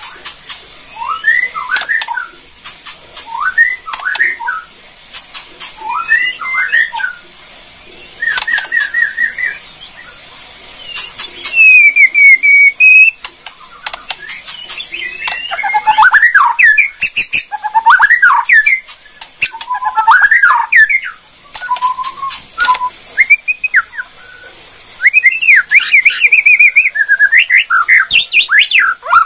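A Bornean white-rumped shama (murai borneo) singing loudly in repeated short, quickly bending whistled phrases mixed with sharp dry clicks: the crackling 'kretekan' part of its song. About twelve seconds in there is a brief, louder fast trill.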